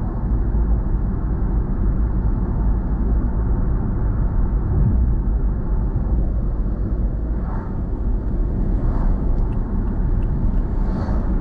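Steady low rumble of road and engine noise from a car being driven, heard from inside the cabin, with a few faint brief sounds in the second half.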